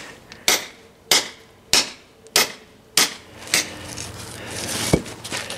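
Hammer blows on masonry as old stone steps are broken out: six sharp strikes, about one every 0.6 s, followed by a short scrape and a single knock near the end.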